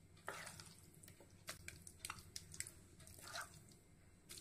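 Thick, sticky vermicelli pudding mixture being scraped out of a pan into a glass dish with a spatula: faint soft squelches and small scrapes and taps.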